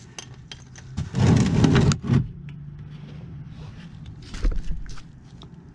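Metal rattle and clinks of a socket wrench being worked at an engine oil pan drain plug: a dense rattle about a second in, a short one just after, and a few more clicks with a low thump near the end.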